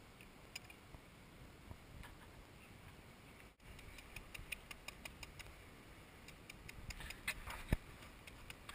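Faint scattered clicks and taps of a knife blade against spiny sea urchin shells on rock. The ticks come thicker after a brief break about three and a half seconds in, with one sharper knock near the end.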